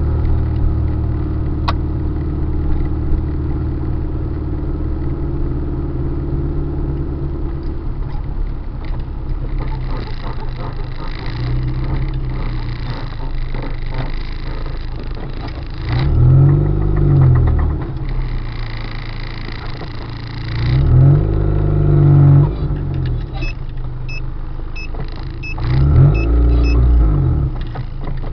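Car engine running steadily, then revved three times, each rise in pitch falling back again. A series of faint short beeps sounds near the end.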